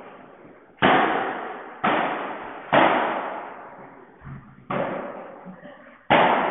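Padel rally: five sharp hits of the ball against padel paddles, the court floor and the glass walls, at uneven gaps of one to two seconds. Each hit echoes and fades in a large hall.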